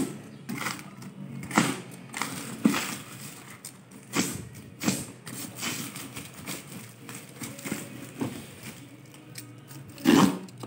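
A plastic-wrapped cardboard parcel being handled and torn open: crinkling plastic and rustling paper and cardboard in scattered sharp crackles, with a louder burst of crinkling near the end.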